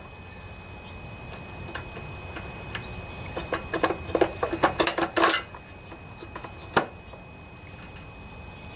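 Light metallic clinks and clicks of small bolts and a socket wrench being handled: a cluster of them in the middle and one sharper click a little later.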